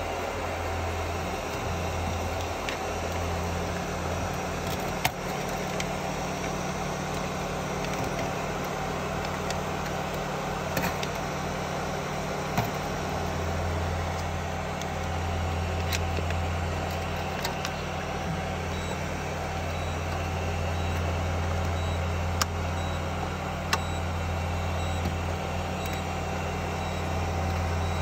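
Steady low mechanical hum throughout, with a few faint clicks and taps from hands working a thermistor wire into its clip inside a refrigerator.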